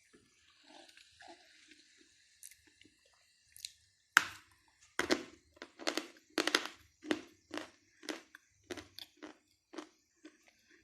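Crunching as a person bites into and chews a hard piece of Ldinka, an edible mineral. The chewing is faint at first, then from about four seconds in comes a steady run of crisp crunches, about two a second.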